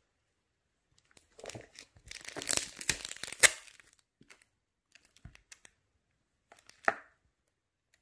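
Clear plastic film crinkling and tearing as it is peeled off a plastic slime tub's lid, for about two seconds. Then come a few light clicks and one sharper knock as the plastic tub is handled.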